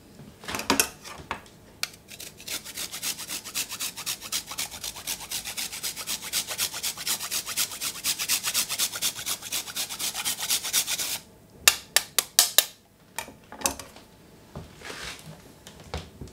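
A block of hard coconut cream grated on a handheld stainless-steel rasp grater: quick, even scraping strokes, about five a second, for several seconds. A handful of sharp clacks follow near the end.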